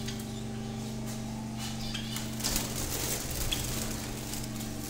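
Small cage birds (finches and Java sparrows) giving a few faint, short chirps over a steady low hum, with a few light clicks about halfway through.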